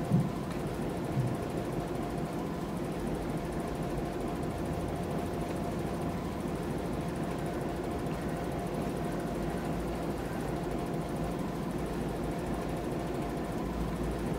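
Model B class diesel locomotive running slowly along the track with a goods train: a steady mechanical hum with a faint steady whine.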